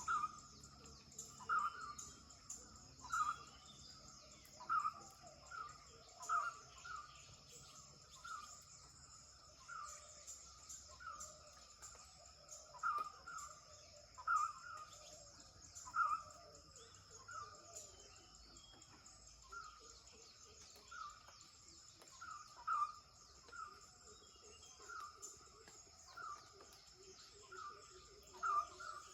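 A bird repeating a short falling call note about every one to two seconds, over a steady high-pitched insect drone.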